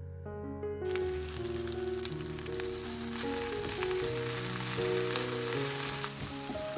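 Food sizzling as it fries in oil in a pan, starting suddenly about a second in and continuing steadily, over background music.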